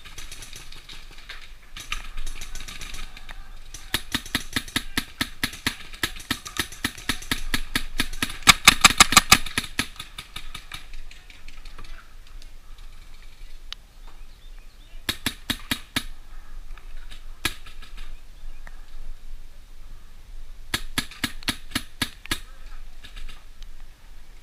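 Paintball markers firing in rapid strings of shots, several shots a second. The longest and loudest volley comes in the first half, followed by shorter bursts later.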